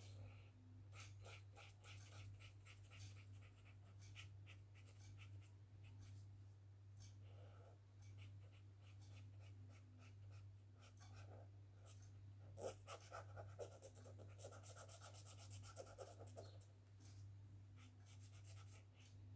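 Faint scratching of a felt-tip marker on sketchbook paper as an area is coloured in with many quick short strokes. The strokes come louder and closer together for a few seconds after about twelve seconds in.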